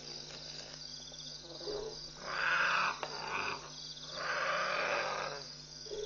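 Two harsh, rough-edged wild animal calls, each lasting about a second, one about two seconds in and one about four seconds in, over steady night insect chirping.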